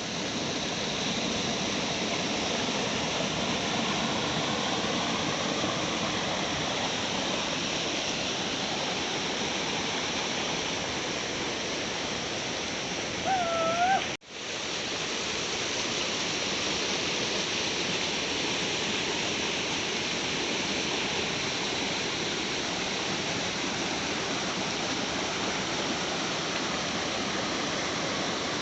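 Kozhippara waterfall rushing as a steady, even noise of falling water. About 13 seconds in, a short whistle-like note dips in pitch and rises again. The sound then breaks off for an instant before the falls carry on.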